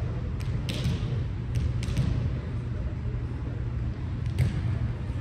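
Volleyball impacts in a gymnasium: a handful of sharp knocks spread over a few seconds, over a steady low rumble of the hall.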